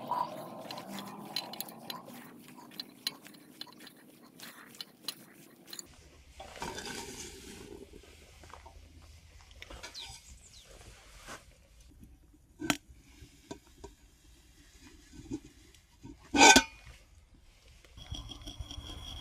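Water beads pattering and clicking into glass jars, with the glass and a steel pot knocking now and then. There is a dense run of small clicks in the first six seconds, sparser clicks after that, and two sharp knocks, the louder one about 16 seconds in.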